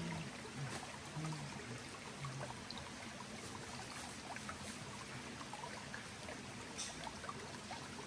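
Shallow forest stream running and trickling over rocks: a steady rush of water, with a few faint low murmurs in the first couple of seconds.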